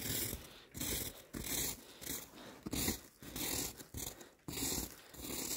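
Fresh snow crunching and scraping in a series of short strokes, a little under two a second.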